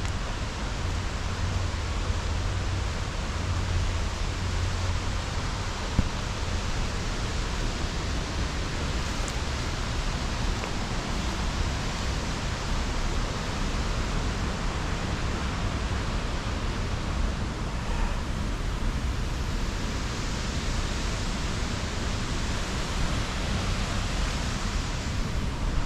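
Steady rushing of water from a creek waterfall: an even hiss with no breaks.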